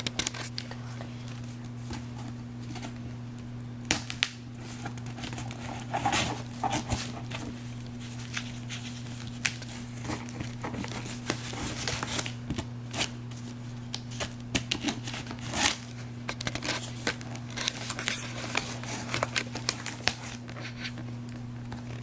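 Cardboard product box being opened by hand: scattered clicks, scrapes and crinkling of flaps and packaging, over a steady low hum.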